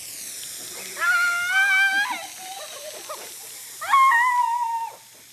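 A Mentos-and-Diet-Coke geyser spraying out of a soda bottle with a steady hissing rush, which dies away near the end. Over it, children give two long, high-pitched shrieks, about a second in and again about four seconds in.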